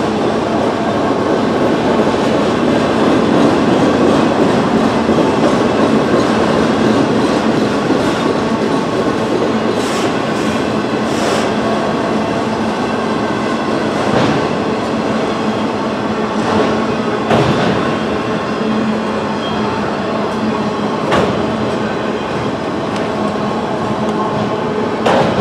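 Freight train of autorack cars rolling past: a steady rumble and rattle of wheels on the rails, with a few sharp knocks scattered through it.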